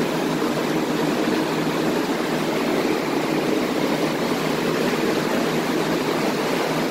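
Air movers, the snail-shaped blower fans used to dry out flood-soaked carpet, running: a steady rush of blown air with a low motor hum under it.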